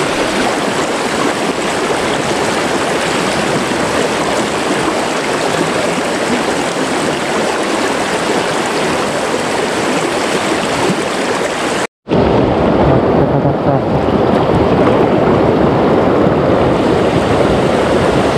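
River rapids rushing steadily over rocks. About twelve seconds in the sound cuts out for an instant and comes back deeper.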